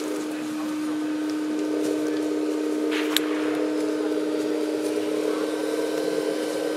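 Electric drive whine of a multi-axle scale RC military truck: a steady hum with a higher whine that comes in about a second and a half in and drops away near the end, and one sharp click about three seconds in.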